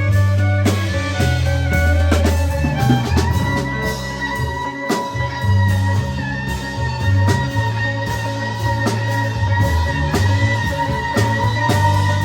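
Rock band playing an instrumental passage live, with electric guitar, bass and drums. A high note is held steadily from about three seconds in, over a moving bass line and drum hits.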